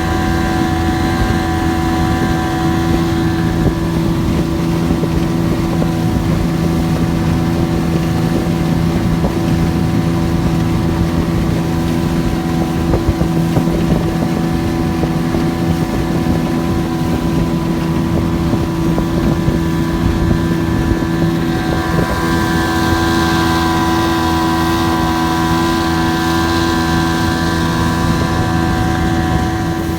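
Motorboat engine running steadily at cruising speed, a constant drone under rushing wind on the microphone.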